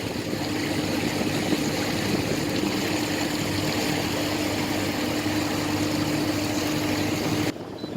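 Twin 60 hp Mercury four-stroke outboards running steadily at low speed: a steady engine hum with a held tone under a broad rushing noise. The sound drops away suddenly near the end.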